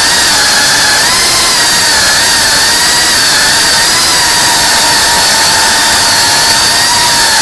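Brushless motors and propellers of a GEPRC Cinelog cinewhoop FPV drone in flight, heard from the camera on board: a loud, steady, high-pitched whine over a rushing hiss, its pitch wavering slightly as the throttle shifts.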